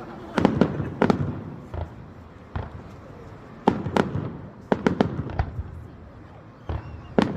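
Fireworks exploding overhead: a string of sharp bangs in irregular clusters, each with a short echoing tail, the loudest coming about half a second in, around four seconds in, and near the end.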